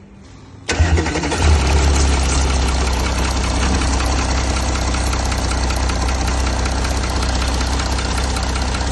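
Audi Q7 3.0 TDI V6 diesel engine starting under a second in, then idling steadily with a fast, even clatter. The knocking this engine was brought in for was traced to the camshafts' side-clearance compensation mechanism (a recall item) and a clogged EGR system, not to the pistons.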